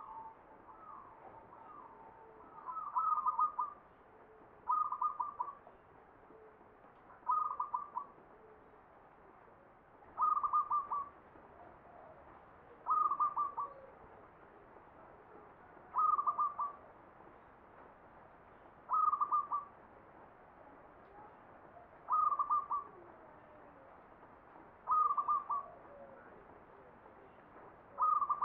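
Zebra dove (perkutut) singing its short cooing phrase, a quick run of a few notes, repeated about every three seconds. The song is the four-part 'ngepat' style of the Mataram (Jogja) standard, and the first phrases are softer than the rest.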